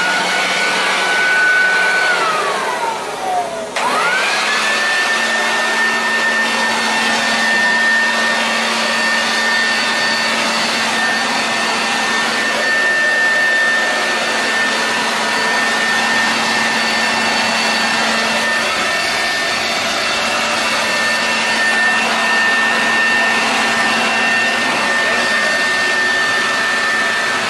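Electric leaf blower running with a high motor whine. It winds down about two seconds in, is switched back on about four seconds in, spins up quickly and then runs steadily.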